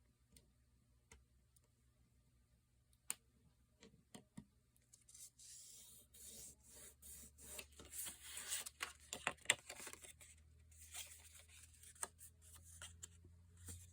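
Hands working paper on a cutting mat: a few light clicks, then, from about five seconds in, several seconds of scratchy rubbing and scraping of a tool across paper, as in scoring, cutting or burnishing a paper pocket.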